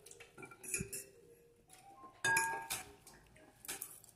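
Metal fork clinking and scraping against a ceramic plate while picking up salad: a few light clinks, the loudest a little over two seconds in with a short ring.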